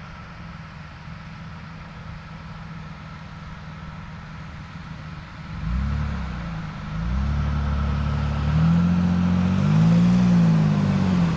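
Nissan Frontier pickup's engine running quietly and steadily at first, then revving up and down in several rising and falling swells from about halfway, growing louder toward the end.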